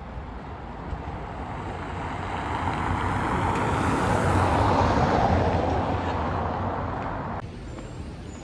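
Street traffic noise with a vehicle passing close by, swelling over a couple of seconds and then fading. The street sound drops off abruptly about seven seconds in.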